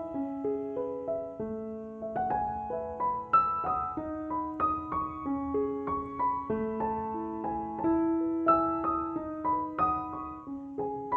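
Background piano music: a slow melody of single notes, each struck and fading, over lower held notes.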